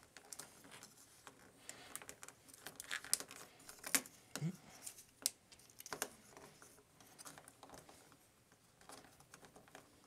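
Faint, irregular small clicks and taps of a plastic Big Firebird Toy EX-01 Plus Mocha action figure being handled and posed, its parts knocking as the legs are moved. The clicks come thickest in the first half or so.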